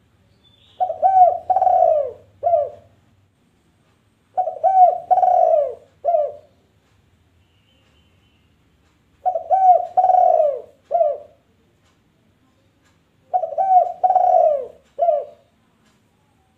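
A dove cooing, repeating one phrase four times at intervals of four to five seconds. Each phrase is two short coos, one long drawn coo and a short closing coo.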